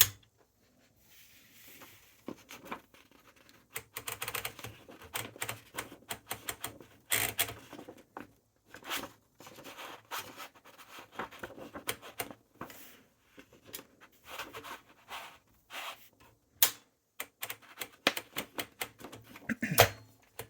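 Montgomery Ward Signature 510D manual typewriter clicking and rattling irregularly as its mechanism is worked to feed in a sheet of paper. The paper lever is flipped up, so the platen won't grab the sheet.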